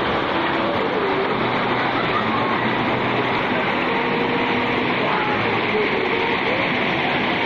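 Steady rushing splash of a swimming pool's bubbler fountain jets spouting water, with faint children's voices behind it.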